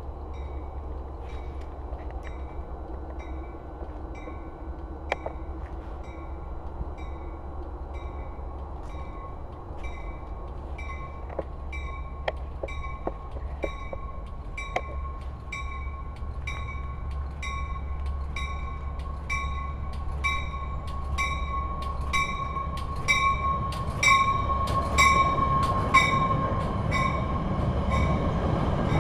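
Metra commuter train approaching and pulling into a station with its bell ringing steadily, about one and a half strokes a second, growing louder as it nears. A steady whine and the rumble of the bilevel cars build near the end as the train rolls past close by.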